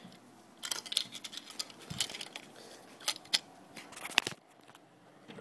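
Handling noise: a run of irregular clicks and crinkles as things are picked up and moved, stopping a little over four seconds in.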